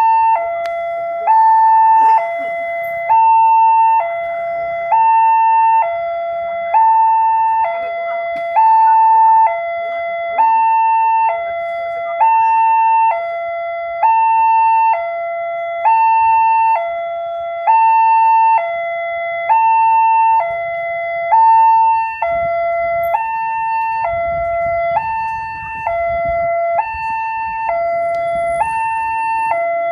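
Railway level-crossing warning alarm sounding a steady two-tone ding-dong, high and low tones alternating about once a second, while the barriers are down for an approaching train. A low rumble builds underneath during the last third.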